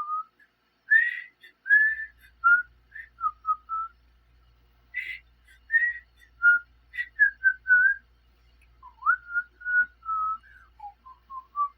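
A person whistling a tune: a string of short, clear notes that rise and fall, with brief pauses between phrases.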